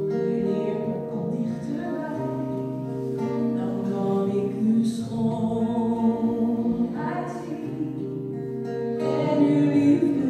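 Church music: voices singing held notes over an acoustic guitar accompaniment.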